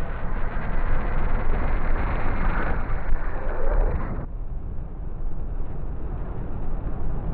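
Electroacoustic music for percussion and tape: a dense noise texture, strongest in the bass, whose brighter upper part cuts off suddenly about four seconds in, leaving a low rumble.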